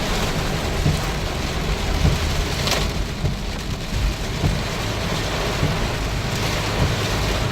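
Torrential rain pouring onto a car's roof and windshield, heard from inside the cabin as a steady, dense hiss over a low rumble.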